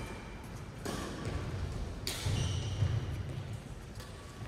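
Two sharp knocks, about one and two seconds in, over the steady low hum of a sports hall: badminton rackets striking a shuttlecock.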